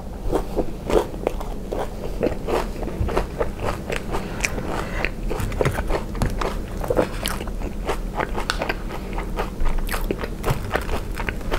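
Close-miked chewing of crispy fried ice cream, then a wooden fork and spoon cutting and breaking into the crunchy fried batter shell: a dense run of small crunches and crackles.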